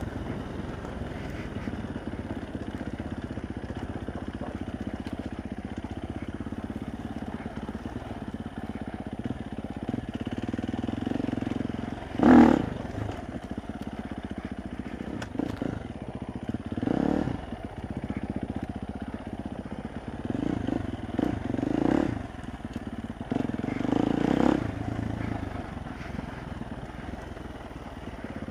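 Dirt bike engine running steadily as the bike is ridden along a bumpy trail, broken by several short, loud bursts, the loudest about twelve seconds in.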